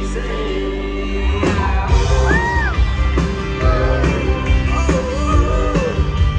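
Live country band playing loud through the concert PA: acoustic guitar, bass, drums and a male singer. A held chord rings at first, then the drums, bass and vocal come in about a second and a half in.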